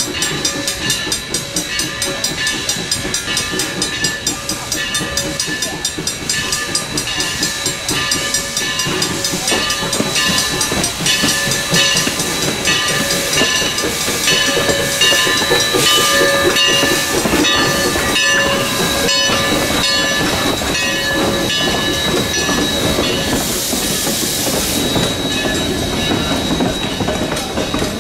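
A 1920-built 3 ft narrow-gauge 4-6-0 steam locomotive drifts in slowly with its coaches, clanking and hissing steam as it comes. It grows louder as it nears, with a stronger burst of hissing about 23 seconds in as the engine passes close.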